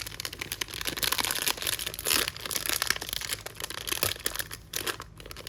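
Plastic wrapper of a trading card value pack being torn open and crinkled by hand: a dense, continuous crackling that thins out near the end.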